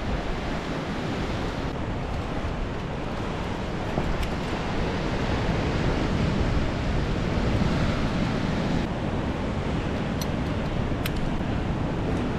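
Steady wash of ocean surf breaking on a rocky coast, mixed with wind buffeting the microphone. A few light clicks near the end.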